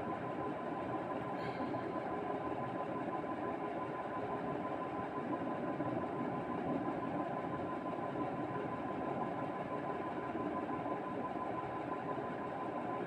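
Steady mechanical hum with a thin steady tone running through it; no sneeze or other sudden sound.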